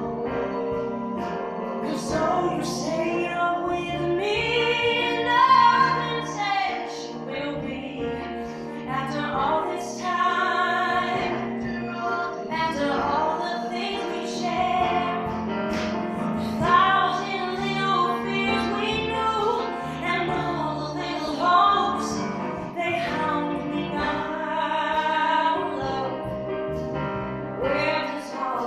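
A woman singing a song live, accompanied by piano and acoustic guitar.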